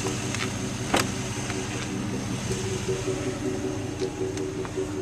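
2005 GMC Yukon's V8 engine idling steadily, with a single sharp click about a second in.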